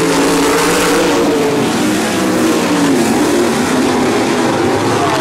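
A pack of winged dirt-track sprint cars running hard together under the green flag, several engines overlapping in a loud drone whose pitch wavers up and down as they power through the turn.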